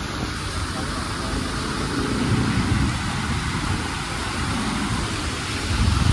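Hyundai i10 Nios hatchback driving slowly through shallow floodwater, its tyres swishing and throwing spray in a steady wash of water noise. A low rumble swells about two seconds in and again near the end.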